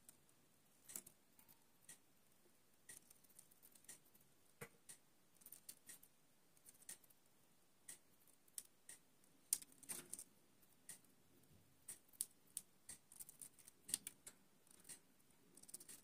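Red canary biting and tearing daikon radish leaves: faint, irregular clicks and snips of its bill, sometimes several in quick succession.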